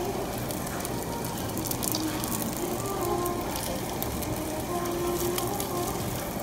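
Meat sizzling and crackling on a hot barbecue grill, with background music.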